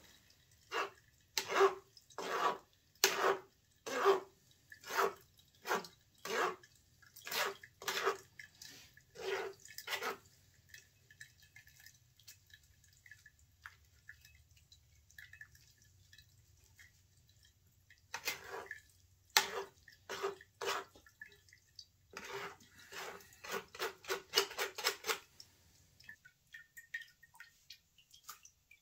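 Metal spoon scraping and pressing wet wax residue of dead bees and debris in a mesh strainer over a stainless pot, squeezing out the melted beeswax. It comes as a series of short scraping strokes with a light metallic ring, about one a second at first. A quiet pause follows, then a quicker run of strokes near the end.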